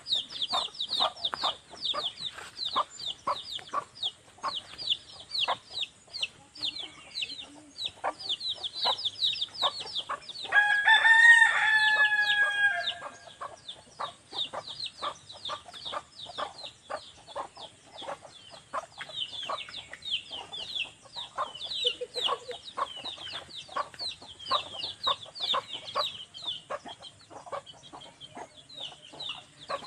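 Chickens clucking and chirping without a break, with a rooster crowing once about ten seconds in, the loudest sound.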